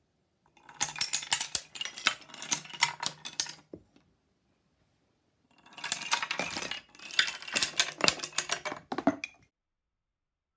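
A line of thin wooden domino blocks toppling in a chain on a wooden bench: a rapid clatter of wood-on-wood clicks for about three seconds, a short pause, then a second run of clattering for about four seconds.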